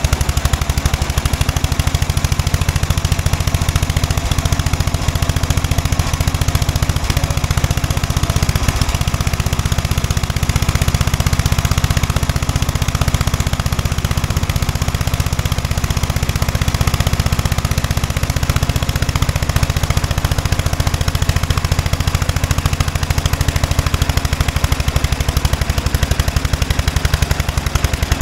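Wheel Horse garden tractor engine running steadily with a rapid, even exhaust beat, belt-driving a large cordwood saw blade that spins free. The owners judge the blade is being spun too fast to be used safely.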